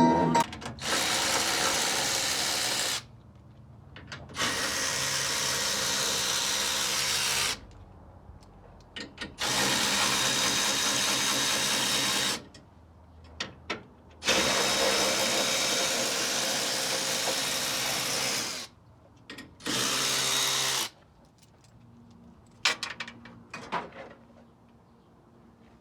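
Power drill running in five spurts of a few seconds each, starting and stopping abruptly as it backs screws out of a truck's front end. A few light clicks follow near the end.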